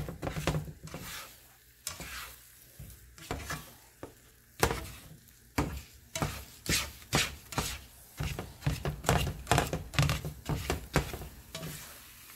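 Scrambled eggs being stirred in a buttered frying pan: a utensil scraping and knocking against the pan in quick, irregular strokes, with the eggs sizzling. The stirring grows busier about halfway through.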